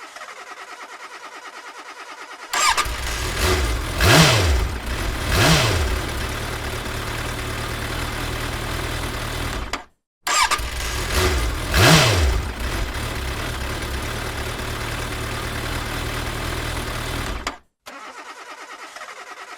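Car engine starting and blipped twice, the revs rising and falling, then idling until it cuts off abruptly about ten seconds in. It starts again at once, revs once and idles until it cuts off near the end. A quieter, fast-ticking mechanical sound comes before the first start and after the last stop.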